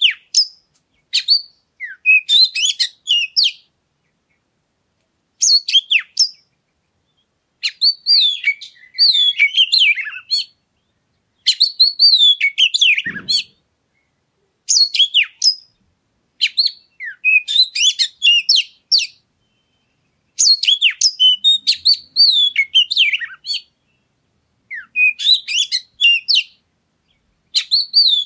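Oriental magpie-robin (kacer) singing: a run of loud song phrases, each a second or two of quick, varied whistles and chirps, broken by pauses of about a second.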